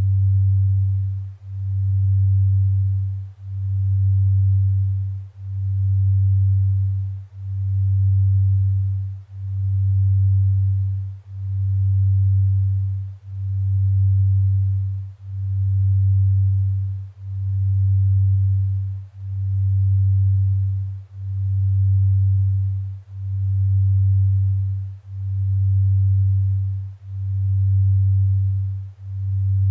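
Low sine tone near 100 Hz, a delta brainwave-entrainment (binaural beat) sleep tone. It swells and fades smoothly about once every two seconds.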